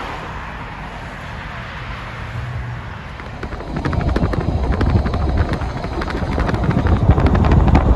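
Road and wind noise inside a moving car, turning about four seconds in into a loud, fluttering low rumble of wind buffeting the microphone as the car gathers speed.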